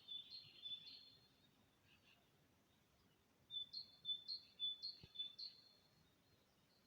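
A songbird singing faintly: two phrases, each of about four quick repeated two-note calls, about three a second. The first comes at the start and the second about three and a half seconds in.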